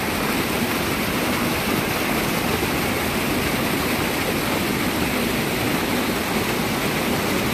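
Brown river water rushing and churning white as it spills below a small dam, a steady rush of water with no break.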